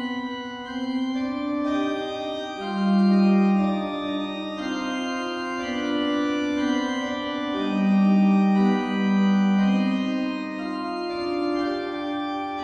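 Slow instrumental music of sustained organ chords that change every second or so. A loud low note swells in twice, at about 3 s and again at about 8 s.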